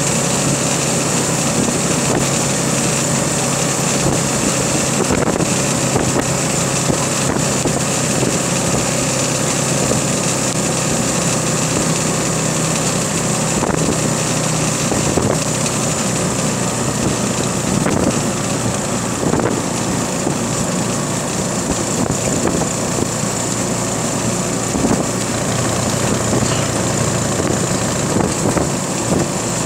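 Motorcycle engine running steadily at an even cruising speed, with wind rushing over the microphone.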